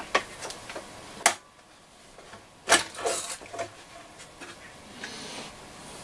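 Clicks, knocks and scraping as a Hacker Super Sovereign radio's chassis is worked loose and slid out of its wooden case, with two sharper knocks about a second and nearly three seconds in.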